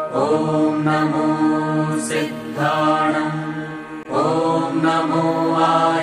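A voice chanting a mantra in long held notes: three sustained phrases, each opening with a short upward slide in pitch.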